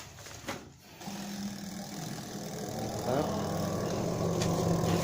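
Twin-tub washing machine's spin-dryer motor starting about a second in and running, a steady hum that grows louder as the spin basket comes up to speed. It turns now on a newly fitted run capacitor; the failed capacitor was why it would not spin.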